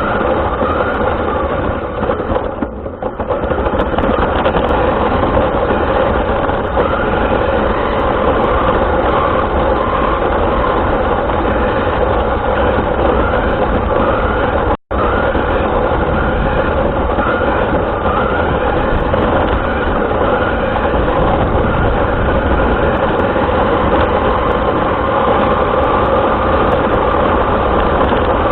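Radio-controlled car driving, heard from a camera mounted on it: steady motor and drivetrain noise mixed with rolling noise, the motor's pitch wavering a little, and the sound cutting out for an instant about halfway.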